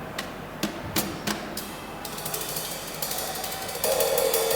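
Live percussion: a few scattered sharp clicks and taps, then a high ringing metallic shimmer, joined near the end by a steady held tone.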